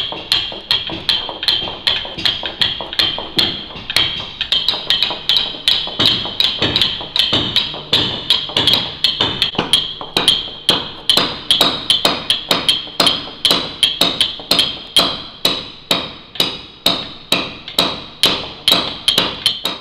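A wooden caulking mallet striking a caulking iron in a steady rhythm, about three blows a second, each blow with a short ringing tone. The iron is driving strands of cotton into the plank seams of a wooden boat's hull.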